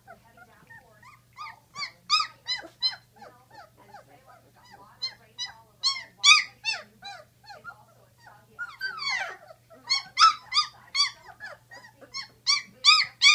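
A litter of 16-day-old Great Dane puppies whining and squealing: many short, high cries overlapping, louder in clusters, with one longer falling cry about nine seconds in.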